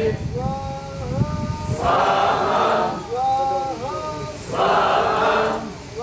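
Call-and-response mantra chanting for a Vedic fire sacrifice: a single voice sings a short held line of mantra, and a group of voices answers together, twice, each round about three seconds long.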